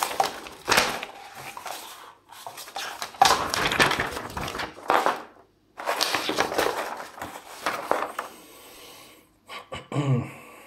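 Large folded paper poster map being unfolded and flattened, the sheet rustling and crinkling in several bursts with short pauses between them.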